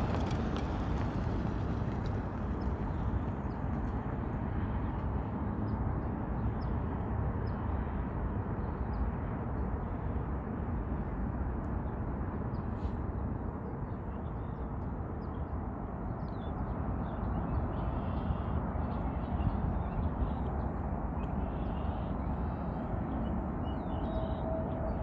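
Steady low outdoor rumble with no clear rise or fall, with faint, scattered bird chirps above it.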